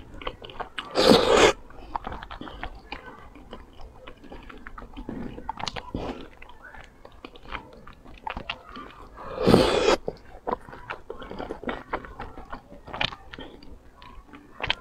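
Slurping and chewing of wide starch noodles in chili sauce. There are two loud slurps, about a second in and again near ten seconds, with wet chewing and small mouth clicks between.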